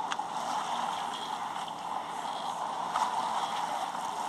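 Steady rush of water and wind around a fishing boat, with a couple of faint knocks, one at the start and one about three seconds in.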